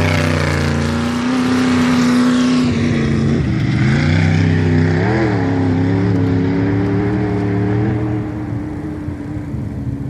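Off-road race vehicle's engine running hard at high revs. Its pitch rises at the start, dips briefly about three and a half seconds in, and the sound gets a little quieter near the end.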